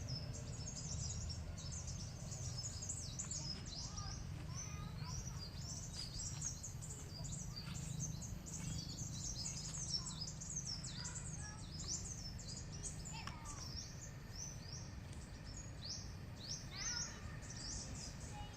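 Forest birds chirping and calling, a dense chorus of many short, high, downward-sweeping calls, over a steady low rumble.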